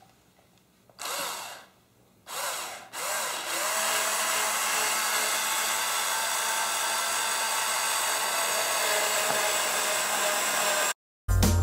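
Handheld power drill driving screws up through a chair frame into the wooden seat base: two short bursts and a brief third, then one long continuous run with a steady whine. The drill cuts off suddenly, and music starts just before the end.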